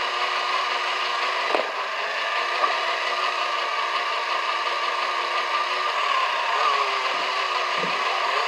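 A machine running with a steady whir, its tone wavering slightly, and a single sharp click about one and a half seconds in.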